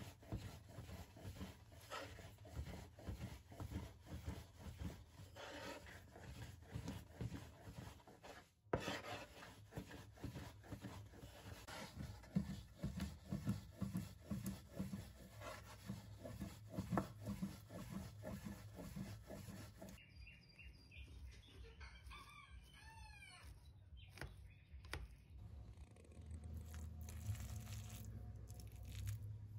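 Chickens, with a rooster crowing a little past two-thirds of the way through, after a long stretch of dense crackling and rustling.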